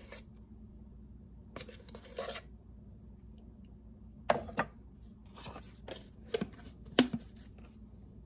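Metal measuring spoon scooping baking powder from its container with a short scrape, then several light clicks and taps of the spoon as the powder goes into a glass mixing bowl of oats.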